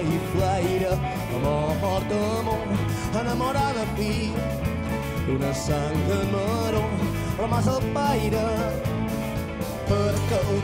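Live rumba-rock band playing with guitars, double bass, drums and piano: a wavering, bending melodic lead line over a steady beat.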